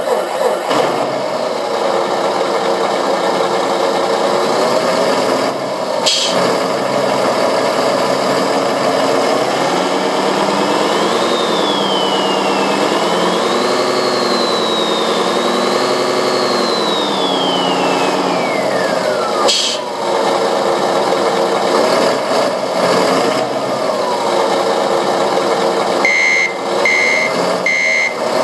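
Servonaut SM7 RC-truck sound module playing a simulated truck engine through a loudspeaker. The engine idles, then revs up and down with a high whine rising and falling with it, and settles back to idle. Near the end a truck's reversing beeper starts, beeping steadily about once every 0.7 s.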